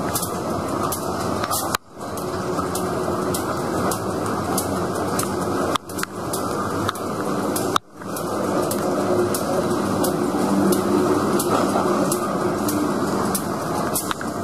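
Freight train moving along the track: a diesel locomotive running steadily under the rumble of freight cars rolling on the rails. The sound breaks off abruptly and resumes three times, about two, six and eight seconds in.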